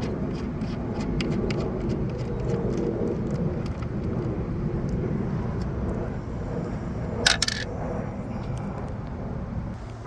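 Metal hand tools (sockets and wrenches) clinking and scraping as they are handled, with one loud, sharp metallic clank about seven seconds in, over a steady low background rumble.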